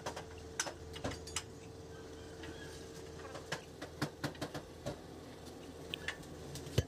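Scattered light metallic clicks and knocks as the complete front hub and brake drum of an Eicher Pro 3015 truck are worked off the axle spindle by hand, with a louder knock near the end. A faint steady hum runs underneath.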